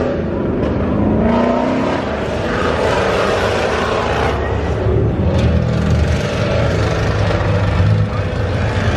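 Performance car engines running and revving, with a steady low rumble that grows louder in the second half.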